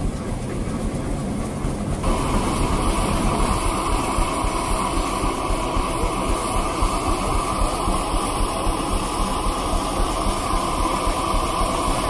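An engine running steadily, its sound shifting about two seconds in.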